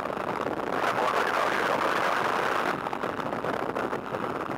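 Steady rushing of wind and engine noise in the open cockpit of a de Havilland Tiger Moth biplane in flight, with wind buffeting the helmet-mounted microphone. It swells for a couple of seconds about a second in, then eases a little.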